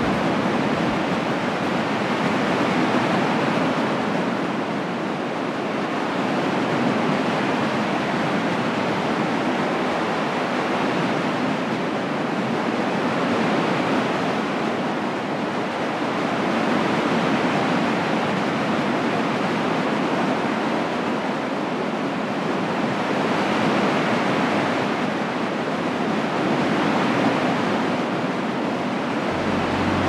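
Ocean surf breaking on a sandy beach: a steady wash of waves that swells and eases every four to five seconds.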